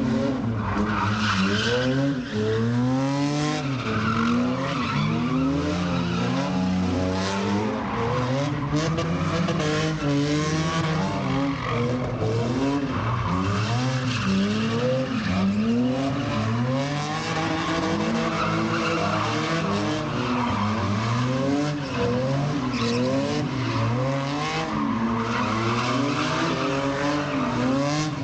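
Car drifting: its engine is revved up and down over and over while the rear tyres skid and squeal through the slides.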